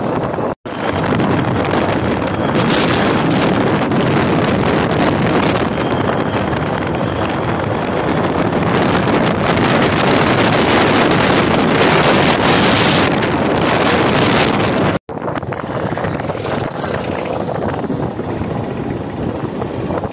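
Wind rushing over the microphone of a phone on a moving motorcycle: a loud, steady rush with road noise, cut off for an instant twice, just after the start and about three-quarters of the way through.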